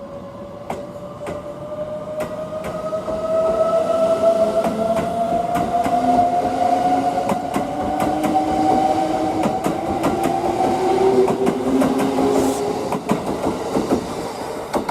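Kintetsu limited express electric train pulling away: its traction motors whine in several tones that rise slowly in pitch as it speeds up. The wheels click over rail joints.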